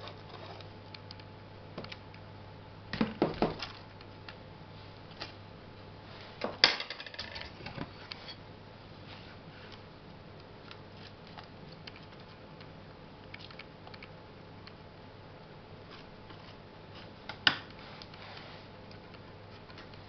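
A small plastic utensil scraping and tapping against a thin clear plastic tray while spreading and levelling perlite potting mix. There are scattered clicks and knocks: a cluster about three seconds in, another about seven seconds in, and a single sharp tap a few seconds before the end.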